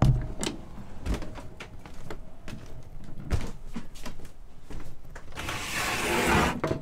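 Metal latch on a wooden boat-cabin door clicking open with a thump, then a string of knocks and steps on wooden floor and companionway steps. About five and a half seconds in comes a scraping rush lasting about a second.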